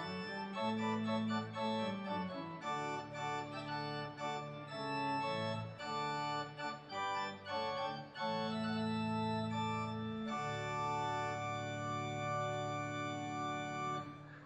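Organ playing a postlude in sustained, changing chords, closing on a long held chord that stops shortly before the end.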